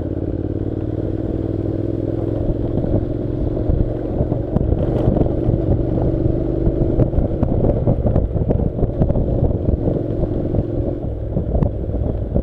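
Honda NC700's parallel-twin engine running at a steady low speed on a rough gravel track, its even note easing away near the end, mixed with wind buffeting the microphone and knocks and rattles from the bumpy ride.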